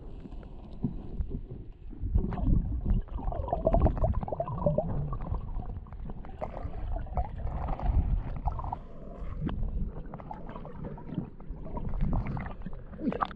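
Stream water sloshing and splashing, with irregular low rumbling.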